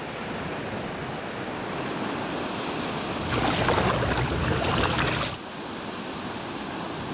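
Sea waves washing in as a steady surf, with one louder surge of a breaking wave from about three to five seconds in that then falls away.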